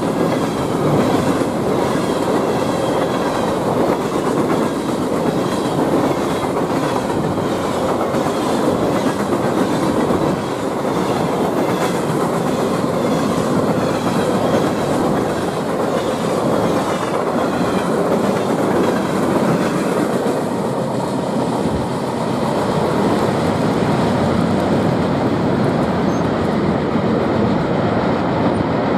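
Empty CSX coke hopper cars rolling past close by: steel wheels clacking in an even rhythm over the rail under a steady rumble. About two-thirds of the way through, the sharper clatter fades and a duller rumble remains.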